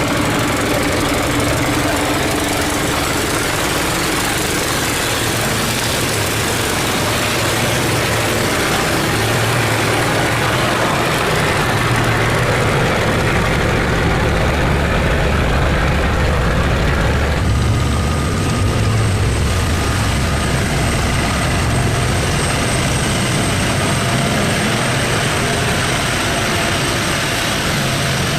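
Engines of boats passing through a canal sluice gate, running steadily with a low hum under a constant noisy wash. About two-thirds of the way through a thin, steady high whine joins in.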